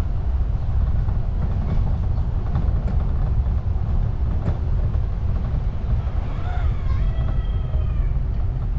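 Steady low rumble of a car driving slowly on a narrow paved lane, heard from a camera on the outside of the car. About six seconds in, a short pitched call rises briefly and then holds for a second or two.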